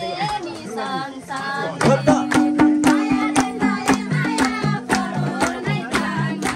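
Live Nepali dohori folk music. Voices sing over the first couple of seconds, then about two seconds in the band comes in with a steady, regular drumbeat under held low melody notes.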